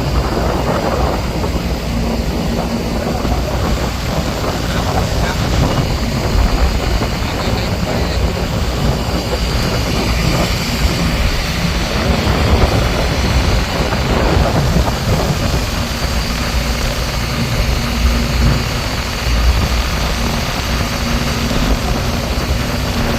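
Fishing boat's engine running steadily, with a constant low rumble and a faint hum.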